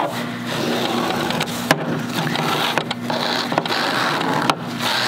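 A plastic ruler edge scraped in several strokes along folded two-ply hospital drape fabric, pressing a sharp crease into it, with a steady low hum underneath.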